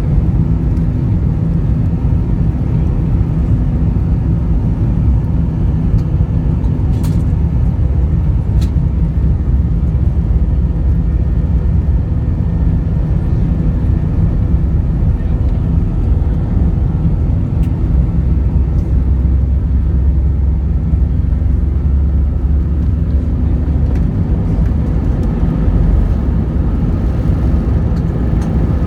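Airbus A320 takeoff roll heard from inside the cabin: its IAE V2500 turbofans at takeoff thrust under a loud, steady low rumble from the wheels on the runway. The rumble eases near the end as the aircraft rotates.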